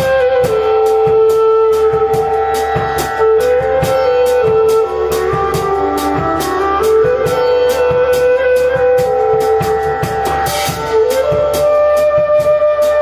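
Live band music: a flute plays long held notes that step up and down in pitch, over a drum kit keeping a steady quick cymbal beat of about four ticks a second and a plucked guitar.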